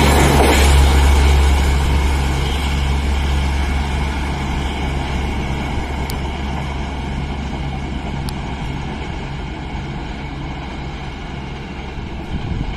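Wheels of a passing passenger train's coaches rumbling on the rails, fading slowly as the train draws away.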